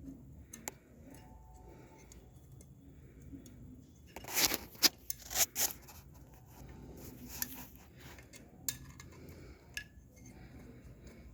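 Metal parts clinking and rattling as they are handled, with a burst of loud clinks about four to six seconds in and a few single sharp ticks elsewhere.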